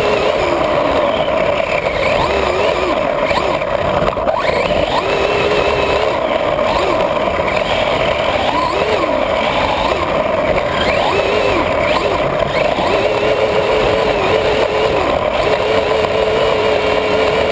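Radio-controlled buggy driving over grass, heard from a camera mounted on the car. Its motor's pitch rises and falls again and again with the throttle, over a steady noise of running.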